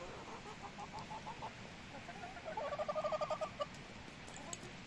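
Leghorn hens clucking: a loose string of short clucks, then about two and a half seconds in a louder, quick run of about a dozen clucks lasting about a second.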